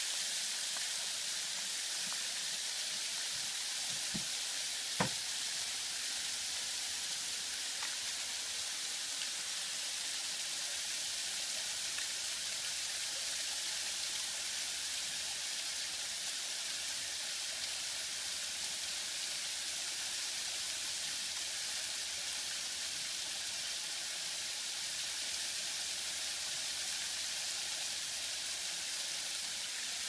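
Steady hiss of water running down a shallow mud-and-rock waterfall, with one sharp knock about five seconds in.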